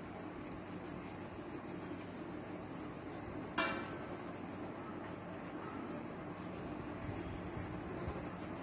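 Cooled, steamed rice flour being rubbed by hand through a fine sieve: a soft, steady rustling scrape. One sharp tap about three and a half seconds in.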